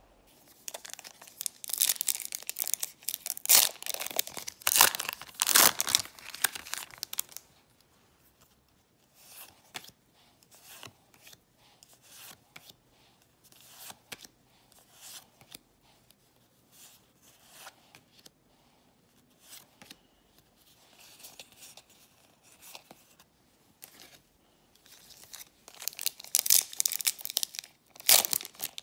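Foil Pokémon booster pack wrappers being torn open and crinkled, loudest for the first several seconds and again near the end; in between come softer, scattered rustles of trading cards being shuffled and handled.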